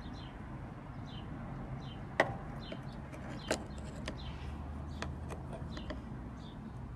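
Cured epoxy resin coasters being handled, clicking sharply against each other or the board a few times, the loudest about two seconds in.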